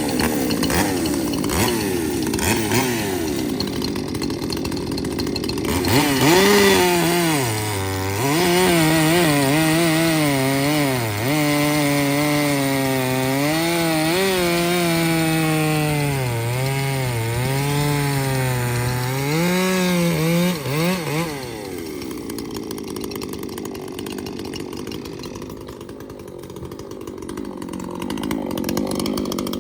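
Two-stroke chainsaw cutting through a large log: from about six seconds in, the engine runs hard under load, its pitch dipping and recovering again and again, until it drops back off the cut near the three-quarter mark. Lighter chainsaw running can be heard either side of the cut.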